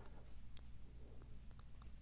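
A few faint, short metallic ticks from small lock parts and tools being handled, over a steady low hum.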